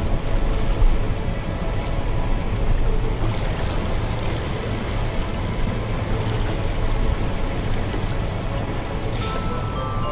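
Steady rushing of churning water below a dam, a continuous loud noise heavy in the low end. Music comes in near the end.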